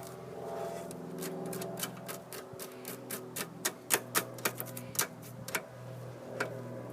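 Quick, irregular sharp metallic clicks and taps of hand tools picking at debris and wire wrapped around a lawn mower's drive axle, bunched in the middle seconds, over a steady low hum.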